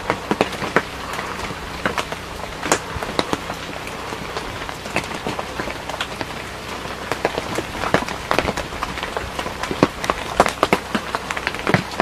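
Dense, irregular patter of sharp ticks and taps over a steady hiss, as of raindrops falling on leaves.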